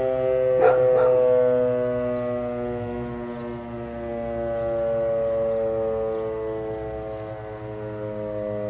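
E.D. Bullard 3H outdoor warning siren sounding during a test. It holds a steady, many-toned wail that drifts slightly lower in pitch, and its loudness swells and fades about every four seconds. Two brief sharp sounds come about a second in.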